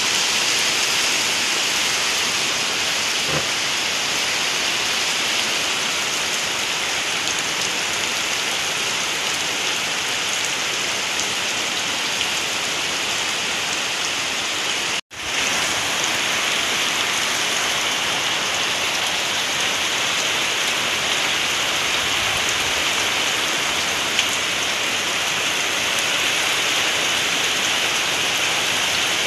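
Heavy typhoon rain pouring steadily onto foliage and muddy ground, a dense even hiss that breaks off for a split second about halfway through.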